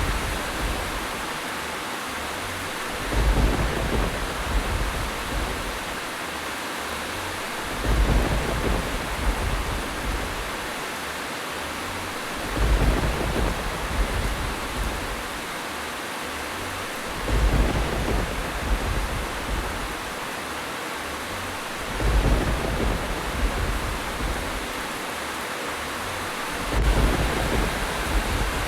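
Steady heavy rain, with a deep rumble swelling and fading about every four to five seconds, six times, at an even spacing that suggests a looped recording.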